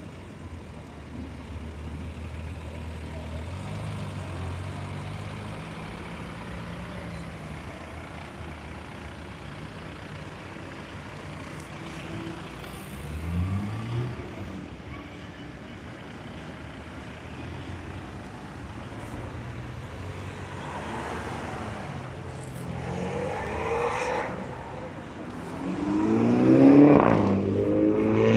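A procession of cars driving past at close range, their engines running at low revs. About halfway through one accelerates with a short rising engine note. Near the end a louder car goes by, its engine rising in pitch as it accelerates, the loudest moment.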